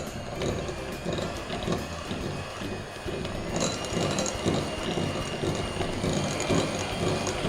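Electric hand mixer beating butter and brown sugar in a bowl: a steady motor whir over the churning and rattle of the beaters in the mixture. A higher whine comes in about halfway through.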